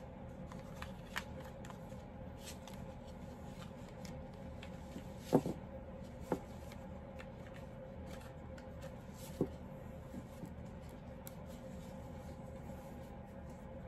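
Tarot cards being shuffled and handled, heard as scattered soft taps and slaps, the sharpest about five seconds in, over a faint steady hum.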